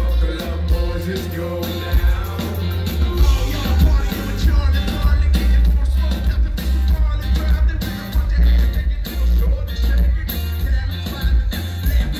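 Loud live music through a club PA: a male vocalist singing into a microphone over heavy bass and a steady drum beat.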